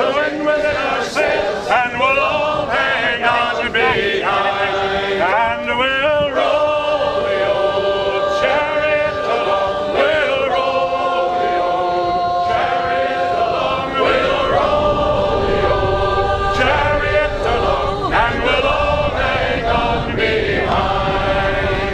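Music: a chorus of male voices singing a sea shanty.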